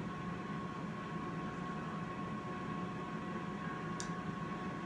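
Air fryer running with a steady fan hum and a thin high whine, with a faint click about four seconds in.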